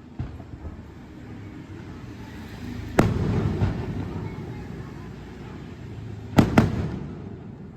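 Aerial fireworks bursting: one sharp bang about three seconds in and two more in quick succession about a second before the end, over a continuous low rumble.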